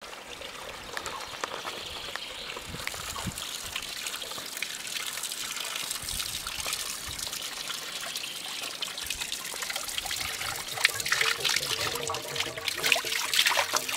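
Spring water trickling from the spout of a stone fountain. The trickling grows louder in the last few seconds as a plastic bottle is held under the stream to fill.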